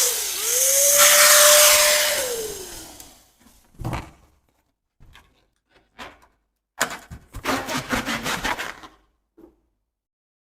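Air rushing out of a balloon's neck with a squealing whistle that holds its pitch, then drops and dies away about three seconds in. A few soft knocks and rustles follow, then a fast fluttering rattle of rubber for a couple of seconds.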